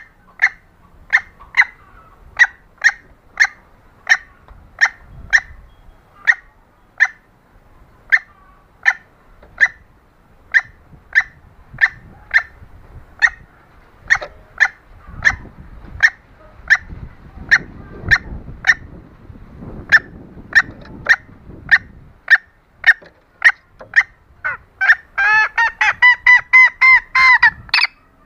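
Junglefowl hen lure call: a long run of short, sharp clucks, about two a second, then near the end a quick burst of about eight louder, drawn-out cackling notes.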